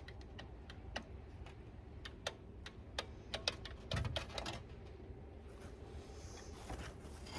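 Light, irregular clicks and taps of tools and parts being handled, with a duller knock about four seconds in.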